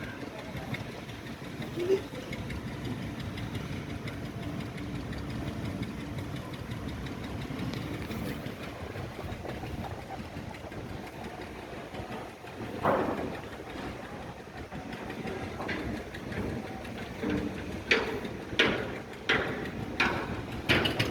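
An engine running steadily at idle, with a series of sharp knocks in the last few seconds, about one or two a second.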